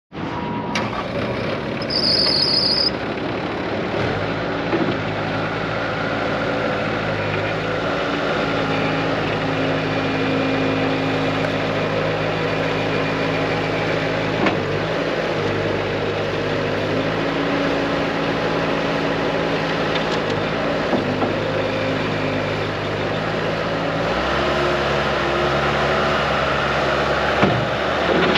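Bobcat 185 Turbo skid steer's diesel engine running, its pitch stepping up and down several times. A short run of high-pitched beeps sounds about two seconds in, before the engine's steady note sets in.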